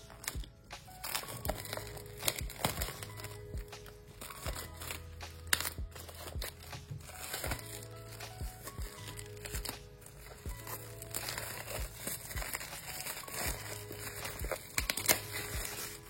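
Plastic packaging crinkling and rustling while a docking station's box is opened and handled, with scattered clicks and taps, over background music with a steady bass line.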